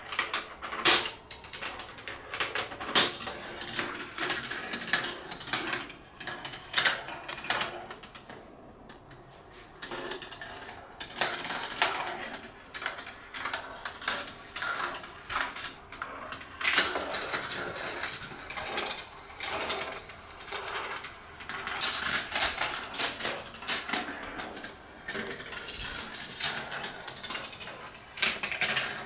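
Marbles rolling along the plastic rails and tiles of a large Gravitrax marble run: a continuous rolling rattle with many irregular sharp clicks and clacks as they drop, land and pass through switches, busiest about three quarters of the way through.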